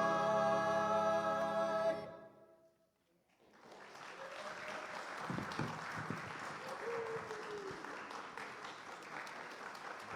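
Choir holding its final sung chord, which stops about two seconds in. After a moment of silence the audience breaks into steady applause, with a voice or two calling out.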